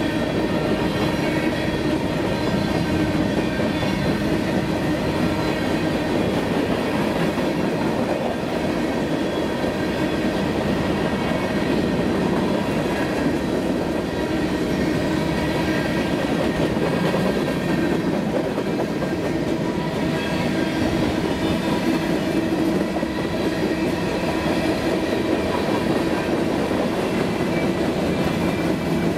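Covered hopper cars of a passing freight train rolling by at trackside: steel wheels on rail making an even, unbroken rumble with faint steady tones ringing through it.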